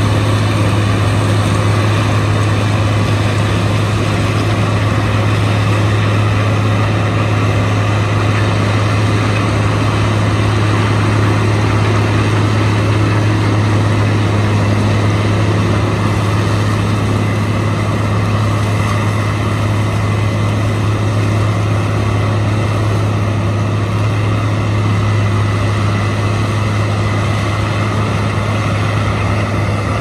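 Diesel engines of corn-harvest machinery (a Case combine harvester and tractor) running close by, a loud, steady low drone that holds level throughout.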